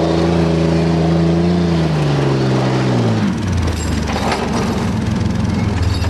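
Yamaha Rhino side-by-side's engine running at high, steady revs, then the revs fall away about two to three seconds in and it settles to a lower, steady run.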